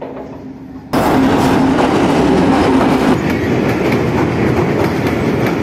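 Passenger train passing close by on a steel truss railway bridge: a loud, continuous rattle and clatter of wheels and coaches on the rails. The first second is quieter, with a steady hum as the train approaches, then the sound jumps suddenly to the loud close passing.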